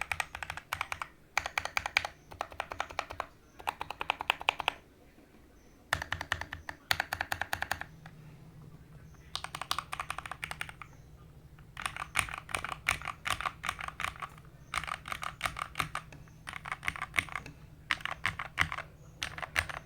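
Typing on a modded Keychron K4 V2 mechanical keyboard: rapid key clicks come in bursts of a second or so, with short pauses between them.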